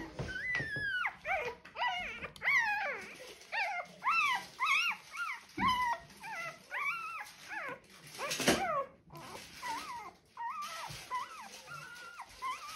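Four-day-old German Shorthaired Pointer puppy crying: a rapid run of high, squeaky cries, each rising and then falling in pitch, about two or three a second, with one louder cry about eight seconds in.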